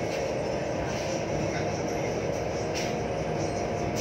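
Daewoo BH115H city bus under way, heard from inside: a steady running drone with the whine of its Voith automatic transmission.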